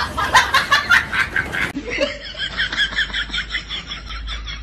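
Dubbed-in laughter sound effects: a rhythmic snickering laugh at about five beats a second. A little under two seconds in, it cuts abruptly to a higher, thinner, faster cackling laugh that carries on.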